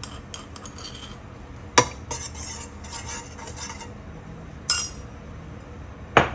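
A metal spoon scraping and knocking against a mortar and pan as crushed spices are tipped into a pan of water. There are three sharp knocks, about two seconds in, near five seconds and at the end, with rough scraping between the first two.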